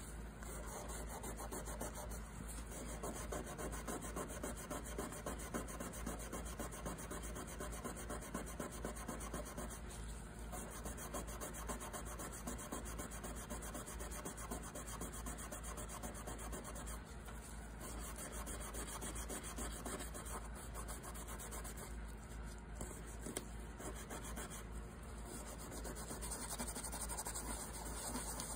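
Scotch-Brite pad scrubbing the carbon smear off a Husqvarna 2100cd chainsaw's KS piston with WD-40, in fast back-and-forth rubbing strokes that let up briefly a few times.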